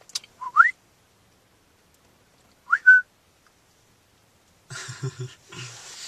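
Two short rising whistles about two and a half seconds apart, the second ending on a brief held note.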